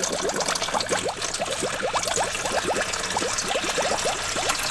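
Water pouring steadily into a small toy pool that is filling up, with a dense stream of quick bubbling plinks rising in pitch.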